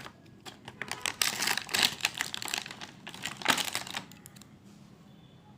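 Plastic and cardboard packaging rustling and crinkling with quick small clicks and taps as an action camera is unpacked and handled, dying down about four seconds in.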